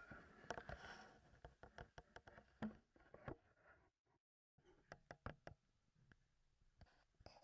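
Faint, irregular light knocks and clicks, a few a second, with the sound cutting out completely for about half a second around four seconds in.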